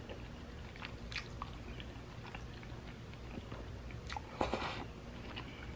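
A person eating spaghetti: faint wet chewing and small mouth clicks, with one short, louder slurp of noodles about four seconds in.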